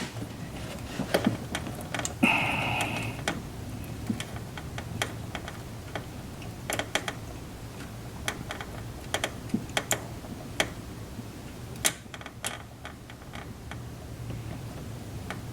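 Scattered, irregular light clicks and taps of small metal parts and hand tools being handled and fitted, with a short louder rustle about two seconds in.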